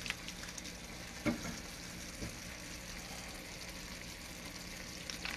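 Creamed spinach simmering and sizzling softly in a nonstick skillet, over a steady low hum, with a few faint clicks, the clearest about a second in.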